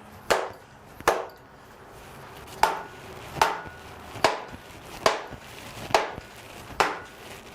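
Hammer blows on a stuck cylinder head of a 350 Chevy small-block, eight sharp strikes with a short ring after each, landing about once every 0.8 seconds with a brief pause after the first two. The head is stuck to the block and is being beaten to break it free.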